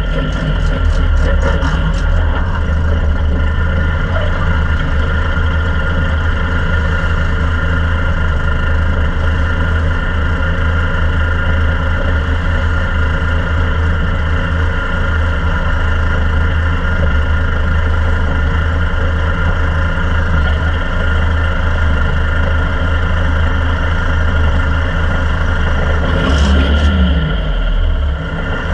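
Ministock race car's engine idling, a steady loud rumble heard from inside the open cockpit, with a short change in pitch near the end.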